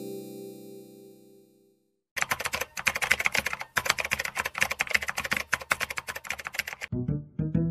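A held musical chord fades away over the first two seconds. Then comes a rapid run of computer-keyboard typing clicks lasting about five seconds, and a few notes of music begin near the end.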